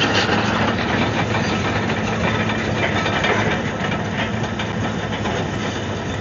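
Komatsu D155AX-7 crawler bulldozer's six-cylinder diesel engine running steadily, a low hum under a continuous metallic rattle from the machine.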